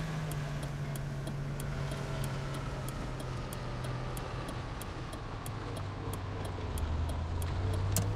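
Car engine running, heard from inside the cabin, its low drone falling slowly in pitch as the car slows, with a regular ticking of the turn signal, about two ticks a second, after the navigation has called a left turn.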